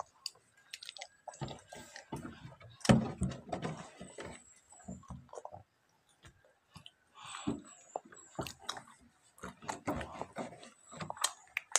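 Chewing and mouth sounds of people eating fried bananas close to the microphone, with irregular short clicks and smacks and a quiet pause around the middle.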